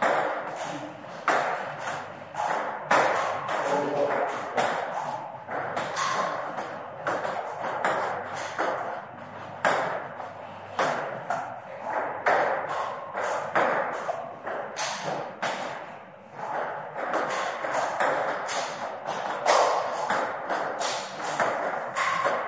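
Table tennis balls clicking off paddles and the table in continuous rallies, a steady run of sharp, irregular pings.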